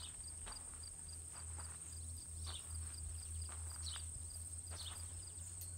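Outdoor summer ambience: insects give a steady high-pitched buzz with a fast, even chirping pulse. A few short falling bird chirps come about halfway through and twice near the end. Faint taps are scattered through it, over a low hum.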